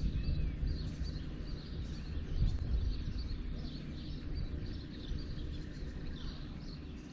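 Small birds chirping, many short high calls, over a low steady rumble of outdoor background noise.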